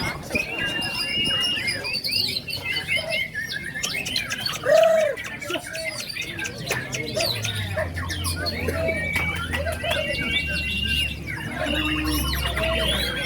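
Many caged songbirds singing at once, a white-rumped shama among them: a dense, overlapping mix of quick chirps, whistles and trills, with some lower arched notes. A low rumble joins from about seven seconds in.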